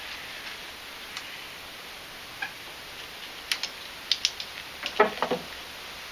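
Locking pliers being unclamped from a rubber fuel line and handled at the tractor engine: scattered light clicks and metal clinks, with the loudest cluster about five seconds in.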